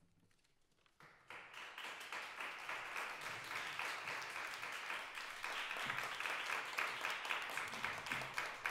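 Audience applause breaking out suddenly about a second in, after near silence, and going on steadily as many hands clapping.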